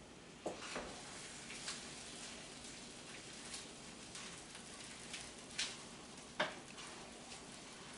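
A pan of creamy orzo and spinach simmering faintly with a soft crackle, and a handful of light knocks as a spoon stirs against the pan.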